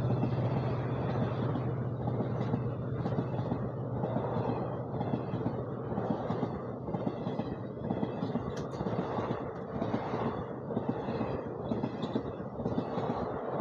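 Passenger train coaches rushing past at speed: a steady rumble and rush of air with a regular wheel clatter over the rail joints, a little under twice a second.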